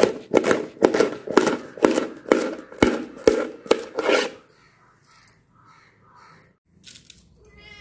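Knife chopping fresh okra into small pieces on a plate, sharp regular strokes about three a second that stop about four seconds in. A short animal call sounds near the end.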